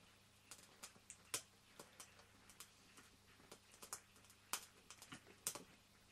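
Faint, irregular light clicks and taps from hands handling a small model steam traction engine and its parts, at uneven spacing with no steady rhythm.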